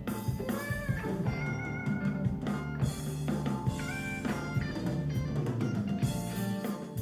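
Blues-rock music with guitar and drums playing through a Sonos smart speaker (a Sonos One or a Play:1), heard as picked up by a phone's microphone. The lead guitar bends its notes over a steady beat.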